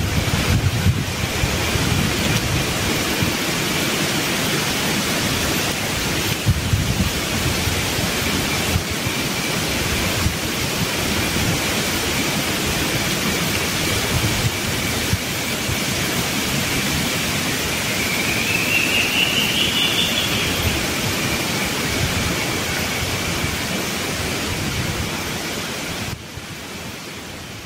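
Wind rushing steadily through a rainforest canopy, the leaves making a dense roar, with low rumbling gusts. A thin steady high tone runs underneath and briefly rises in pitch about two-thirds of the way through. The sound fades out at the end.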